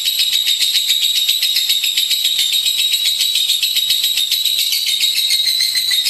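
Lovebird singing nonstop: a long, very fast, shrill chatter of notes that never breaks.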